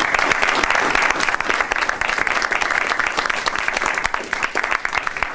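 A small audience applauding, a dense steady patter of many hands clapping.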